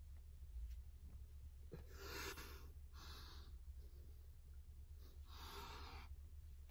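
Faint, heavy breathing of a man straining through push-ups: three breaths, about two, three and five and a half seconds in.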